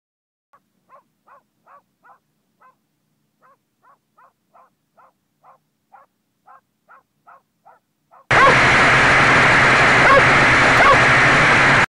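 Faint, quick yapping of a small dog, about three barks a second. About eight seconds in, a loud steady whir of the X-copter's motors and propellers cuts in abruptly, heard close up on the craft.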